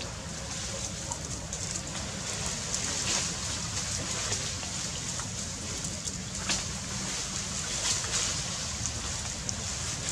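Outdoor ambience beside river water: a steady noisy wash with a low wind rumble on the microphone, broken by a few brief sharp sounds about three, six and a half and eight seconds in.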